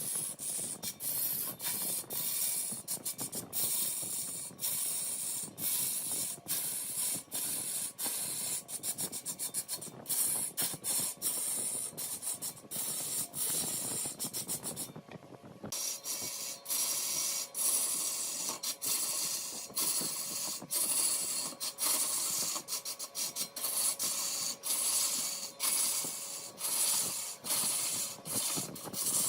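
Turning tool cutting wood on a large wood lathe: a steady hissing scrape, broken by frequent brief dips as the cut catches and lets go. The sound changes abruptly about halfway through.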